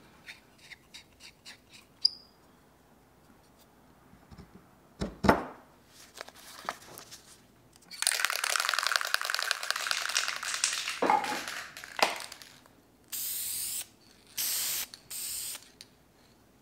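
Aerosol can of Deft clear wood finish shaken hard for about four seconds, its mixing ball rattling, then sprayed in three short hissing bursts. Before that, a few light clicks and a knock.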